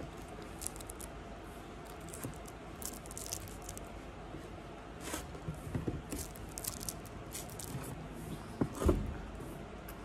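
Light crinkling, scraping and clicking of a small paper drink carton and its plastic straw being handled, with a low thump near the end as the carton is set down.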